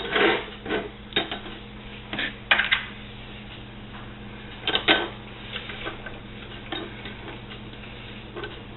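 Light metallic clinks and taps of small oil-burner parts being handled, the ignition electrode assembly of a Beckett burner: a handful of scattered knocks in the first five seconds, then only faint ones, over a faint steady hum.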